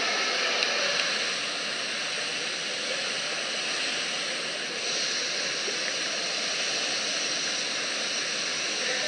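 Steady rush of churning water in an indoor spa pool area, with a whirlpool tub bubbling.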